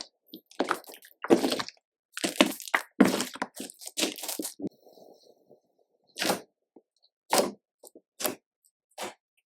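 Slime being pressed and squished by hand, giving irregular crackling pops as air pockets burst: a quick cluster at first, then single pops about a second apart.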